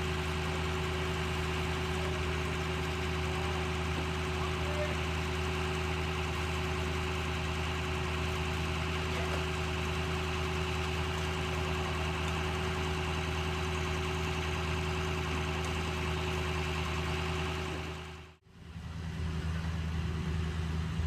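An engine running steadily at idle, with an even, unchanging hum. The sound dips out briefly about eighteen seconds in, then returns the same.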